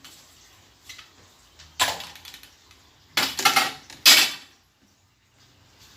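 Metal curtain rings or hooks scraping and clinking along a curtain rod as a curtain is taken down, in three short bursts about two, three and four seconds in.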